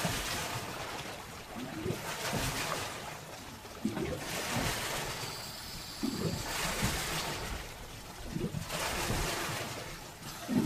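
Sea water washing in several surges a couple of seconds apart, with faint voices underneath.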